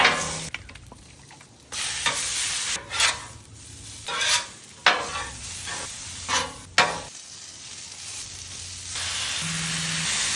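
Food sizzling and frying on a Blackstone flat-top griddle, the hiss swelling and fading and going steady near the end, with several sharp knocks in between.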